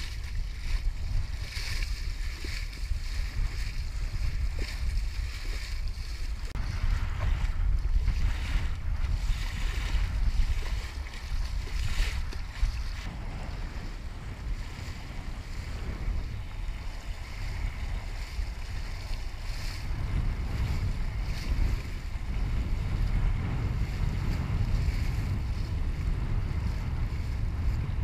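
Wind buffeting the microphone in a heavy, uneven low rumble, over water rushing and slapping along the hull of a 1973 Mewa sailing dinghy under sail in choppy water, with a few sharper splashes.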